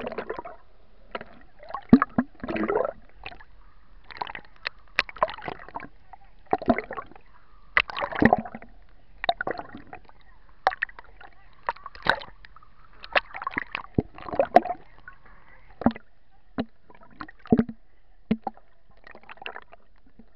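Water splashing, gurgling with bubbles, and sharp knocks heard through an underwater camera as swimmers kick and climb a boat's metal swim ladder. The sounds come in uneven, muffled bursts.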